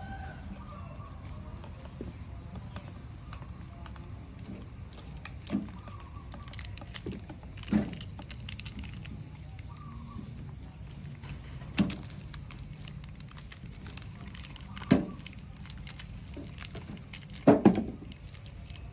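A handful of short, sharp knocks at irregular intervals over a low, steady hum; the last is a quick double knock near the end.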